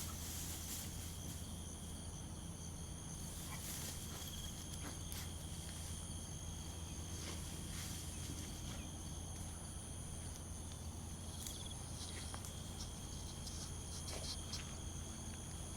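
Insects singing a steady, continuous high-pitched drone at several pitches, with scattered brief rustles and footfalls in grass.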